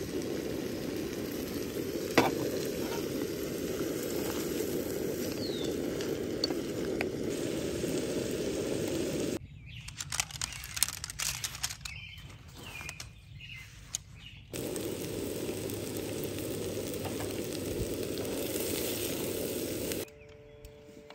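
Vegetables sizzling in a frying pan on a camp stove, a steady frying hiss, with a sharp knock about two seconds in. In the middle the hiss gives way for a few seconds to quieter scattered crackles and clicks, then returns.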